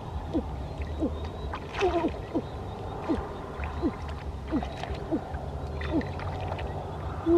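Repeated animal calls: short, low notes that each drop in pitch, about two a second, over a steady low rumble.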